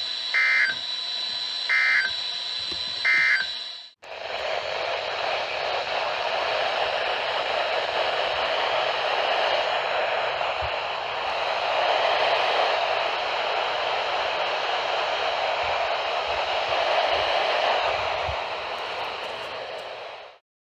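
NOAA Weather Radio broadcast: three short warbling data bursts about a second and a half apart, the EAS end-of-message code that closes the warning. About four seconds in, the signal cuts out and steady radio static hisses until it stops suddenly near the end, as the station's transmission drops.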